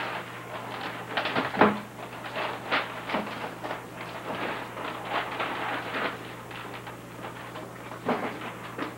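Kitchen handling noises: irregular small knocks, clicks and rustles, with one sharper knock about a second and a half in, over a steady low hum.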